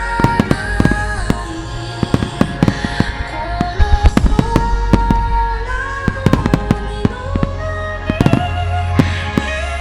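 A large fireworks display: many sharp bangs and crackles in quick succession over deep rolling booms. Music with held melody notes plays alongside.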